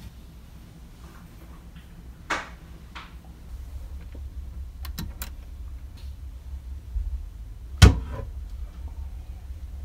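Light clicks as the berth's wall light and fittings are handled, then one sharp knock near the end as a small hinged panel door in the capsule wall is opened, over a low steady hum.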